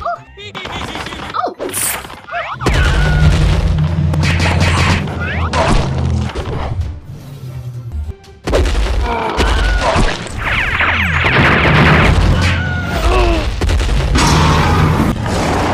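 Animated action-cartoon soundtrack: background music with a heavy bass line, cut through by booms, thuds and crashing sound effects.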